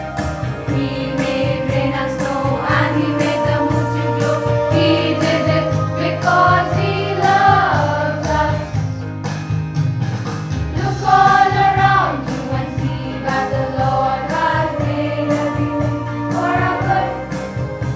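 A choir of schoolgirls singing a hymn, with held notes and a couple of falling slides in pitch.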